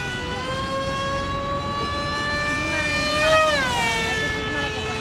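Electric propeller motor of a homemade RC jet plane in flight, a high whine that slowly rises in pitch, gets loudest about three seconds in, then drops in pitch as the plane flies past.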